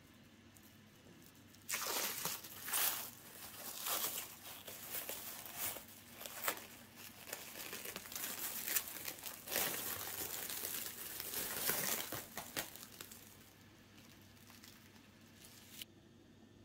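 Plastic cling film being peeled off a glass bowl and crumpled, crinkling in uneven bursts for about ten seconds and then trailing off softer.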